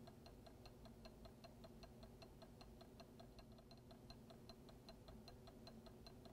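Faint, very regular ticking, about four ticks a second, over a low steady hum: a magnetic stirrer running with its stir bar spinning in the Erlenmeyer flask.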